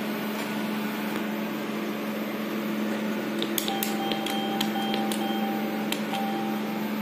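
Hyosung ATM PIN pad being keyed in: about half a dozen key clicks, each with a short electronic beep, starting about halfway through as the 6-digit YONO cash PIN is entered. A steady electrical hum from the machine runs underneath.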